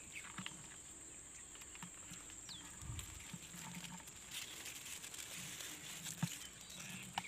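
Quiet outdoor ambience: a steady faint high hiss with scattered small clicks and rustles.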